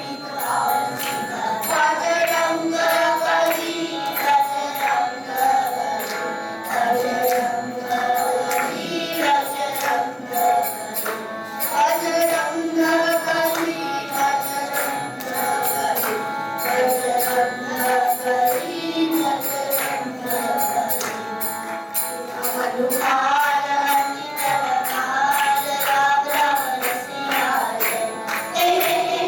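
Background music: a continuous wavering melody over steady jingling percussion.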